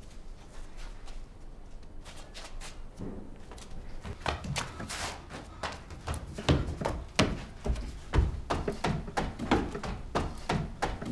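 Hurried footsteps climbing a wooden staircase: an irregular run of heavy steps starting about four seconds in and getting louder toward the end.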